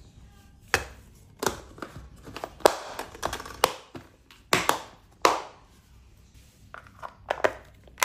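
Plastic lunch boxes being closed and handled: the clip-lock lids set on and their latches snapped shut, a string of sharp clicks and knocks.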